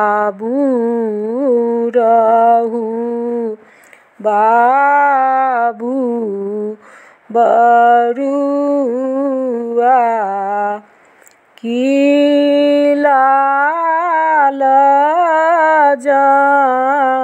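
A woman singing a Maithili upanayan (sacred-thread ceremony) song solo, in long held, gliding phrases with short breaks for breath between them.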